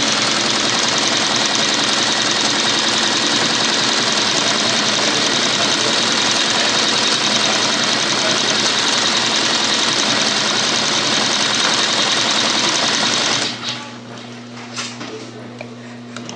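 Dürkopp Adler 204-370 extra-heavy triple-feed sewing machine stitching thick webbing at a steady high speed. It stops about three seconds before the end, leaving a low steady hum and a few light clicks.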